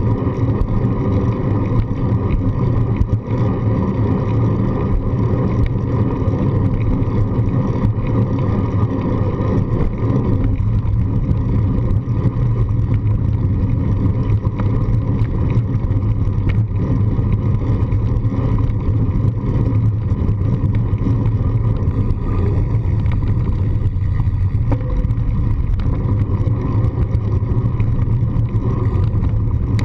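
Steady wind and road rumble picked up by a handlebar-mounted GoPro on a moving bicycle: a continuous low rumble with a hiss above it.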